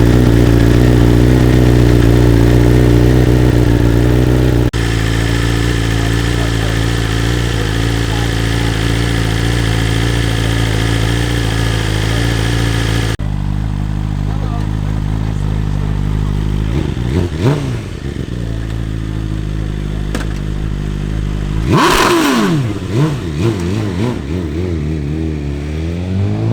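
BMW S1000RR inline-four superbike engine idling steadily, then given two quick throttle blips in the second half and a rising rev near the end.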